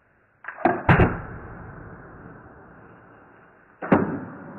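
Sharp knocks: three in quick succession about half a second in, trailing off, and one more near the end.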